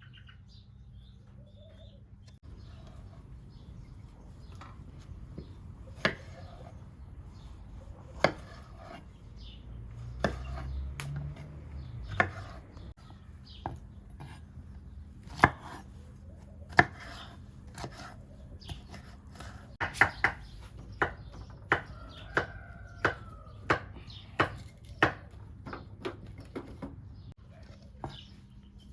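Knife chopping food on a cutting board: scattered single chops at first, then a steady run of one to two chops a second in the second half.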